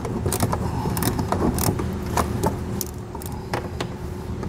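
Hand ratchet with an extension clicking in uneven strokes as it backs out a long-threaded 10 mm bolt, over a faint steady hum.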